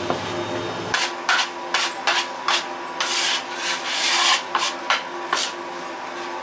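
Metal bench scraper scraping flour and dough across a floured worktop in quick repeated strokes, with one longer scrape about three seconds in. A steady faint hum runs underneath.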